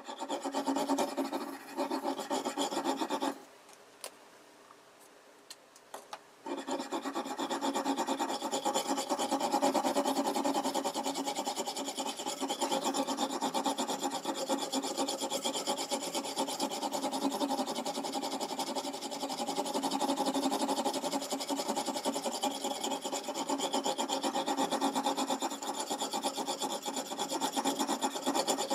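A knife blade stroked back and forth along an oil whetstone in a guided sharpening system, making a continuous scraping rasp. It stops for about three seconds near the start, with a few light clicks, then carries on steadily.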